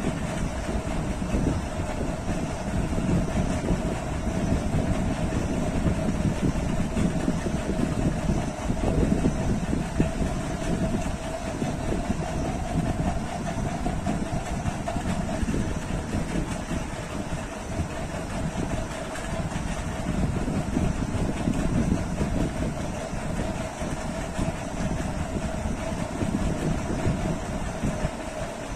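A steady mechanical hum with a constant mid-pitched tone over a rushing noise, unchanging throughout.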